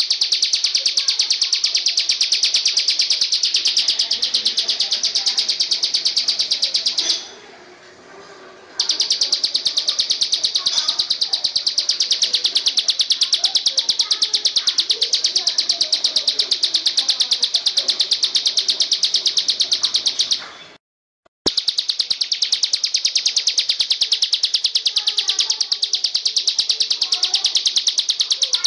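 Master-sound recording for training songbirds: a continuous high-pitched trill made of very rapid, even pulses, with fainter scattered chirps beneath. It cuts out briefly about a quarter of the way in and again after about 21 seconds, then resumes unchanged.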